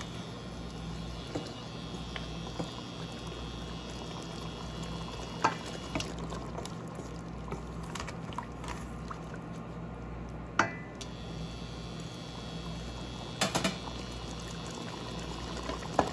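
Chicken adobo cooking liquid bubbling in a pot, a steady watery hiss, with a few sharp clicks of a utensil or lid against the pot.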